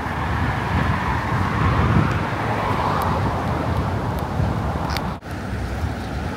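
Strong wind buffeting the microphone with street traffic behind it; a car's tyre noise swells as it passes about two to three seconds in.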